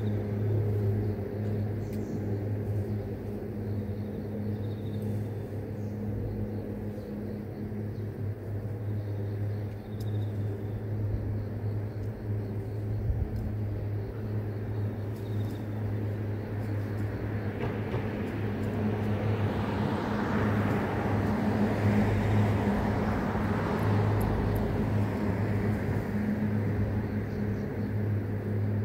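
Roadside traffic: a steady low engine hum, and a vehicle passing that swells and fades in the second half. Faint high chirps of grass insects come through now and then.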